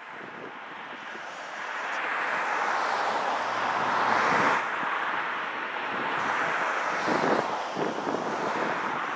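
Gusting wind rushing over the microphone, mixed with the distant running of a diesel work train, swelling to its loudest about four and a half seconds in.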